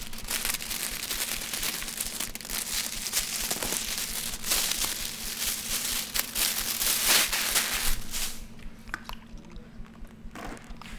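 Plastic release liner being peeled off a sheet of paint protection film: a dense, continuous crackling that stops about eight seconds in, followed by a few lighter rustles and clicks.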